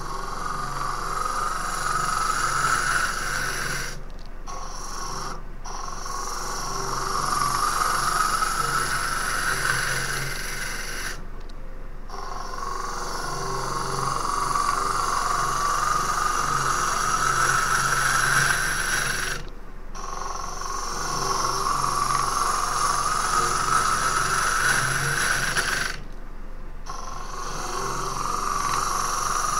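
Gouge cutting green Japanese ornamental cherry end grain on a running wood lathe, throwing wet shavings, over the lathe's steady hum. It comes as about five long cutting passes, each rising in pitch, with short breaks between them as the tool comes off the wood.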